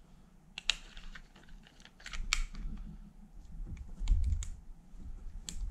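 Unloaded Walther P22 .22 pistol being worked by hand: a scattered, uneven run of sharp mechanical clicks and clacks from its slide and magazine, with a dull handling knock about four seconds in.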